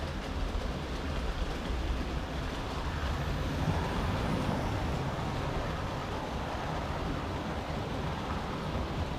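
Model railway train running on the track, a steady rumble of wheels on rails and motor that grows louder from about three seconds in as a rake of coaches runs past close by, easing again near the end.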